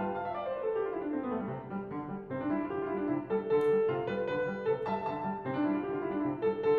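Solo classical piano played on a Schimmel grand, opening with a quick descending run of notes in the first second or two, then moving on through chords and repeated notes.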